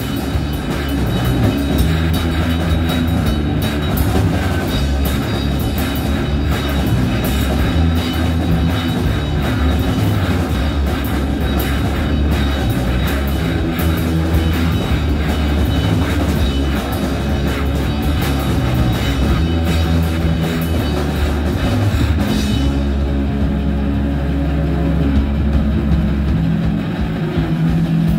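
Live rock band playing: electric guitars over a drum kit. About three-quarters of the way through, the drums drop out and the guitars carry on ringing.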